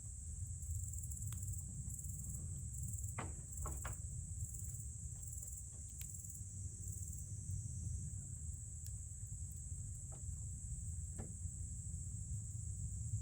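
Campfire burning, with scattered sharp crackles and pops, a few close together around three to four seconds in. Under them runs a steady high insect trill, with a second faster pulsing trill above it during the first half.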